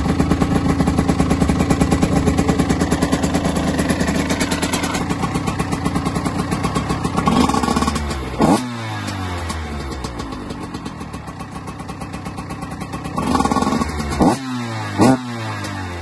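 TM SMR 125 FI's fuel-injected two-stroke single running on its stock exhaust, smoking. It idles steadily, then is blipped sharply about halfway through and twice near the end, the revs dropping back each time.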